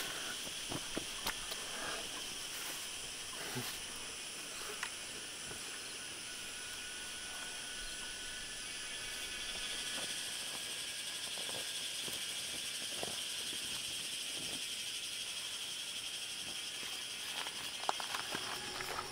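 Steady high-pitched insect chorus, swelling a little about halfway through, with a few faint clicks and rustles.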